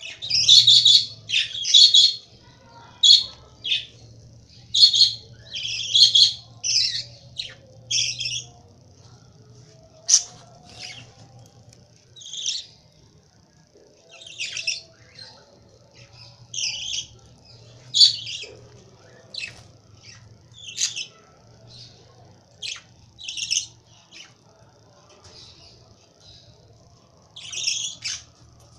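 Young lovebirds calling with short, high squawks and chirps, in quick runs over the first eight seconds or so and then more spaced out, one or two calls a second. A faint low hum runs underneath.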